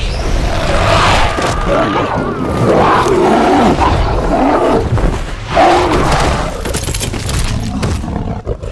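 Film sound of a winged fell beast roaring as it attacks, several long wavering roars over a rumbling low end, with the loudest burst about five and a half seconds in.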